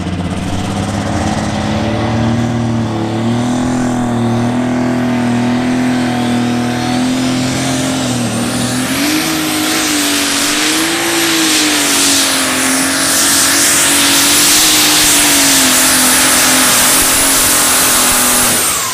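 Light super stock pulling tractor's turbocharged engine running hard under load as it pulls the sled. A high turbo whistle climbs over a few seconds about a third of the way in, then holds. The sound falls away suddenly near the end as the engine comes off the throttle.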